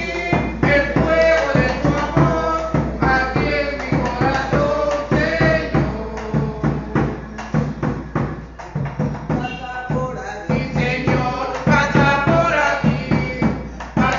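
A strap-hung bass drum beaten with a stick in a steady, lively rhythm, with voices singing along.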